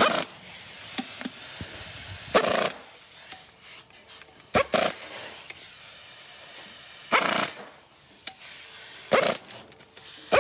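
A pneumatic impact wrench fired in short bursts, about four in all, roughly every two to two and a half seconds, running down bolts on a cycloidal pinwheel gear reducer's housing.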